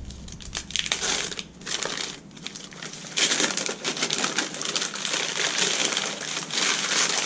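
White wrapping paper and tissue paper being pulled open and crumpled by hand, a continuous crinkling rustle that comes in uneven bursts and is loudest in the second half.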